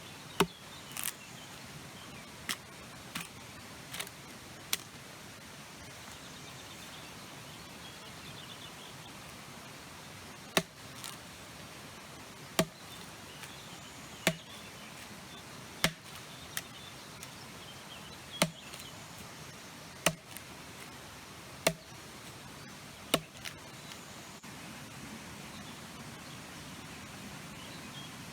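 Axe chopping wood: a quick run of six sharp strikes at first, then after a pause eight more strikes about every two seconds, stopping a few seconds before the end, over faint outdoor background.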